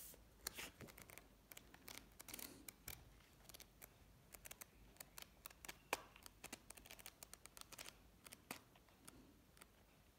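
Paper pages of a paperback book being fanned through by hand: a faint, rapid run of page flicks and ticks, with a sharper snap about six seconds in.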